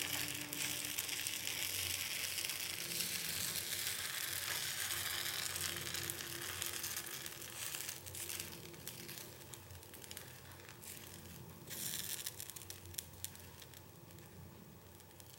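Rice-and-dal batter sizzling on a hot flat griddle as it is spread thin into a crepe, the sizzle dying down steadily as the batter sets. Light scrapes and taps come and go in the second half.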